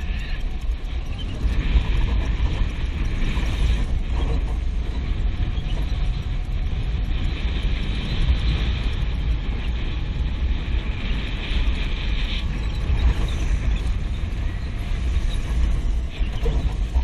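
Go-kart engine running steadily as the kart drives round the track, with wind buffeting the microphone as a low rumble.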